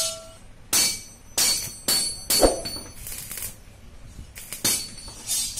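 Stick (arc) welder striking short arcs with an electrode, about seven brief bursts of crackling hiss, as a nut is tack-welded onto a steel fitting.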